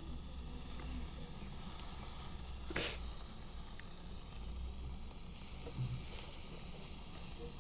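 Food sizzling on a barbecue grill: a steady hiss, with one sharper pop about three seconds in.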